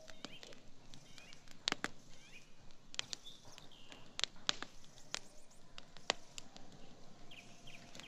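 Wood campfire of branches and logs crackling, with irregular sharp pops; the loudest come a couple of seconds in and again around four and six seconds. Small birds chirp faintly in the background.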